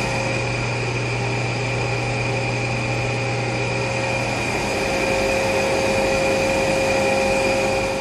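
Haas SL-30T CNC lathe spindle running steadily at 1500 RPM: a constant machine hum with a high-pitched whine.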